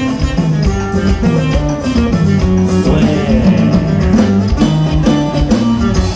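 A live band playing amplified music with a steady beat: a walking bass line, drums and guitar.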